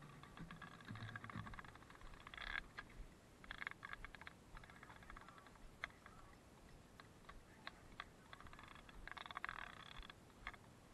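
Near silence, with faint scattered clicks and a few short rustling patches: footsteps and clothing while walking along a concrete sidewalk.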